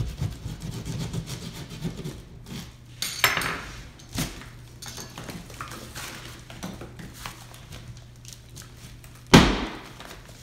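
Quick scraping strokes of a hand-held blade sawing into a water-rotted wall panel. Then cracking, snapping and rustling as the panel is broken and torn away by hand, with one loud crack near the end.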